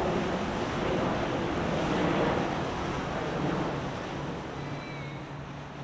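Water rushing and churning along the hull of a passing cabin cruiser, with wind noise on the microphone. From about halfway in, a steady low boat-engine hum comes through as the rush fades.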